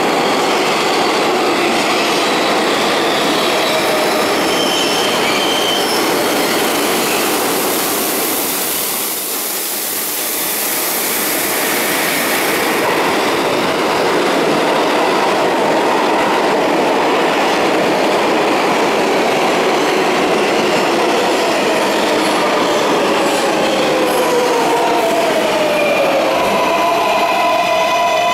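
R142A subway train running into an underground station: loud steady rail and wheel noise, with a high metallic hiss around ten seconds in as the cars come along the platform. Near the end the train's motor whine falls in pitch as it brakes, then settles into several steady tones as it draws to a stop.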